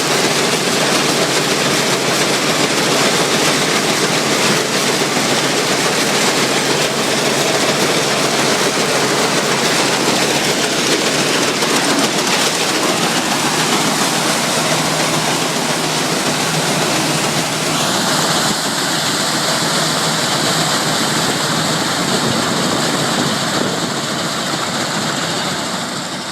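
Allis-Chalmers All-Crop 72 pull-type combine running steadily while harvesting wheat: a loud, continuous mechanical rush. Its tone changes about two-thirds of the way through, and it eases off slightly near the end.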